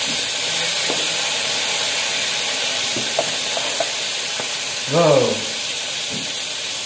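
Fish frying in hot oil in a wok: a steady sizzle, with a few small clicks in the first few seconds.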